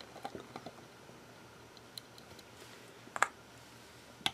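Faint light clicks and taps of a screwdriver and fingers on the opened hard drive's metal parts, with a sharper click about three seconds in and another near the end.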